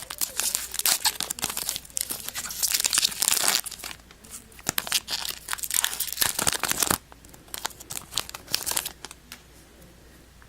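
A baseball card pack's foil wrapper being torn open and crinkled by hand for about seven seconds, followed by a few faint rustles as the cards come out.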